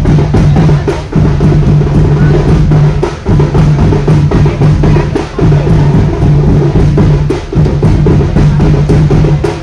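Loud drumming with music, a steady beat of bass drum and sharper drum hits over a low held note that drops out about every two seconds.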